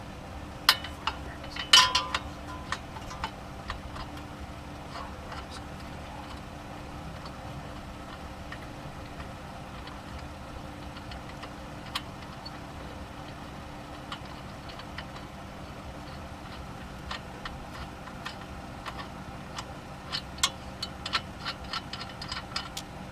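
Hand tools working on suspension bolts: a few sharp metal clanks, the loudest about two seconds in, then scattered clicks and a quick run of ratchet-like clicking near the end, over a steady low hum.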